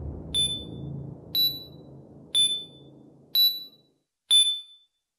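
Electronic countdown-timer beeps: a short, high beep once a second, five times, over a low droning hum that fades out about four seconds in.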